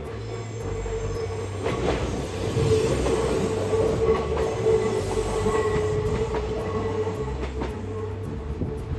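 Kintetsu electric train rounding a sharp curve, its wheels squealing against the rail in one steady high squeal that builds to its loudest midway and eases off toward the end. A few sharp clacks come through the squeal.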